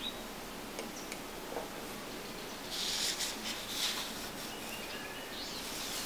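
A sheet of paper sliding and rustling on a desk as it is turned, a scratchy rustle lasting about a second and a half, starting about three seconds in, over a steady faint hiss.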